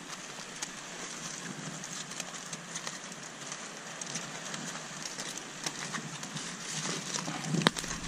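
Aluminium foil crinkling and crackling as hands fold and wrap it around a fish, with a louder crackle near the end, over a steady background hiss.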